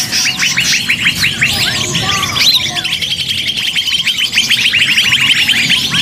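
Bird-luring call recording: a dense, noisy chorus of many small birds calling at once, with rapid strings of short high chirps and overlapping downward-sweeping calls.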